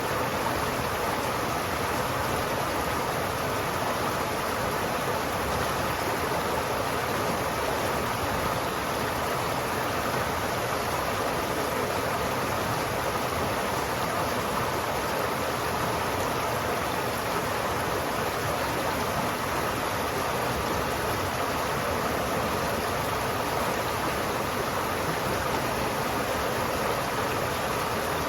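River water flowing steadily: an even, unbroken rush of moving water.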